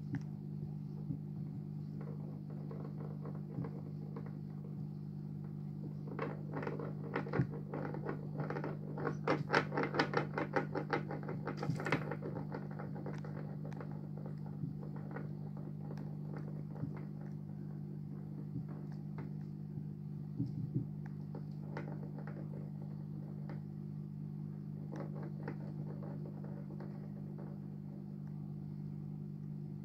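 Steady low hum of a turtle aquarium, with a quick run of small clicks and taps about six to twelve seconds in and a few single taps later.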